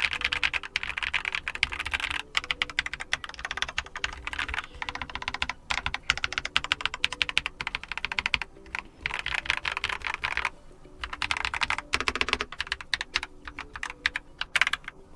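Keychron K2 QMK mechanical keyboard with brown tactile switches being typed on fast and continuously, with a few short pauses, as a sound test resting on a mousepad. The keystrokes sound pleasant and smooth, from factory-lubricated switches and stabilizers.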